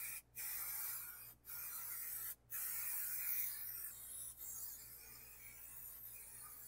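Aerosol can of white Raptor bed-liner coating spraying a hiss onto plywood. It comes in a few short bursts with brief breaks during the first two and a half seconds, then one longer, steadier spray that gets quieter toward the end.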